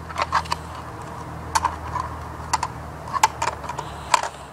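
Sharp plastic clicks and rattles from a Nerf Deploy CS-6 dart blaster being handled while its magazine is changed and it is readied to fire: about ten separate clicks at irregular intervals.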